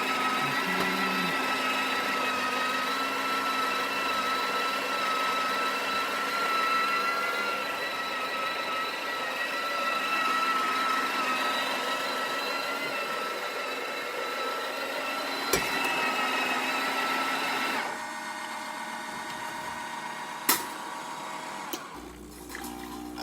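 Breville Oracle espresso machine running steadily with a humming drone while pulling a shot of espresso. The sound drops noticeably about three-quarters of the way through, with a few sharp clicks around it.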